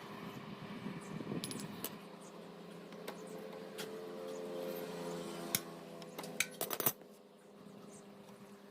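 Light metallic clinks and taps of tools and small engine parts as a motorcycle camshaft and its sprocket are worked out of the cylinder head, with a quick cluster of sharp clicks about five and a half to seven seconds in.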